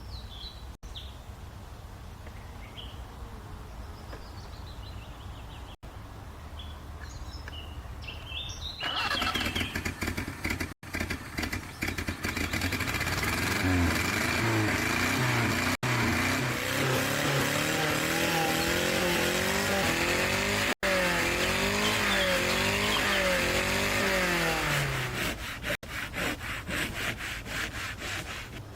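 Faint bird chirps. Then, about a third of the way in, an SUV engine starts and is revved up and down repeatedly, settling into a pulsing idle near the end.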